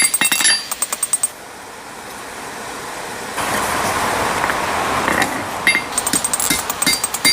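Rapid hammer blows on hot steel over an anvil, ringing with each strike, as the horns of a railroad spike are drawn out. The hammering stops about a second in for a few seconds of steady rushing noise, then picks up again near the end.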